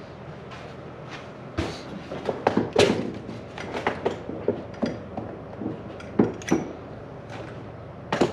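Hand tools and metal parts clinking, tapping and knocking in irregular sharp clicks while a mower lever assembly is being worked on, loudest a little before three seconds in, about six seconds in and just before the end.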